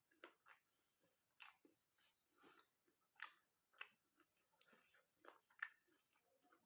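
Quiet close-up mukbang chewing of chicken curry and rice: irregular wet mouth clicks and smacks, a few of them sharper and louder than the rest.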